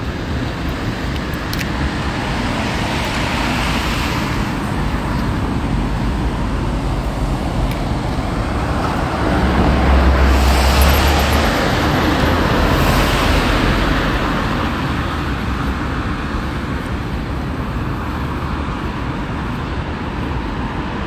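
Road traffic going by: a steady wash of car noise, swelling as vehicles pass, loudest about ten to thirteen seconds in.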